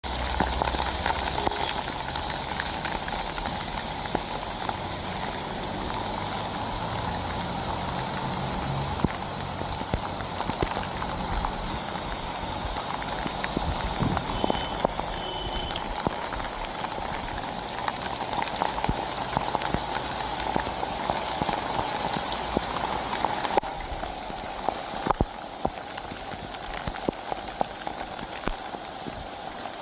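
Heavy rain pouring down, a dense steady hiss with countless drops pattering on surfaces. A steady high-pitched tone runs through the first half and drops in pitch about twelve seconds in.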